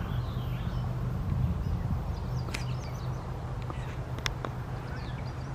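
Outdoor woodland ambience: faint bird chirps over a steady low rumble, with two sharp clicks partway through.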